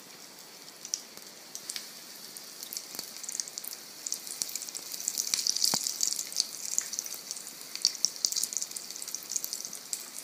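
Cornflour-dusted paneer and potato kofta balls deep-frying in hot oil: a steady sizzle full of fine crackles, busiest around the middle, with one light knock a little past halfway.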